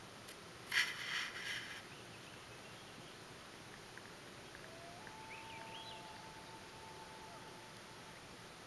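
Red-throated loon and Swainson's thrushes calling over calm water. A loud, harsh, pulsed call comes about a second in. From about five seconds a long wail rises and then holds steady for roughly two seconds, while faint, fluty, upward-rising thrush notes sound above it.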